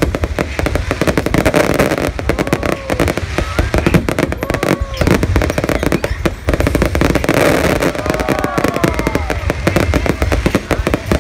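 Aerial fireworks going off in a dense, continuous barrage of bangs and crackling, with a steady low rumble underneath.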